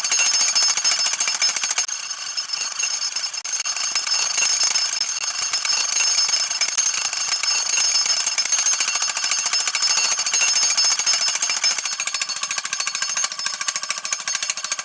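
Jackhammer running continuously: a rapid, even hammering with high steady ringing tones over it. It cuts off suddenly at the very end.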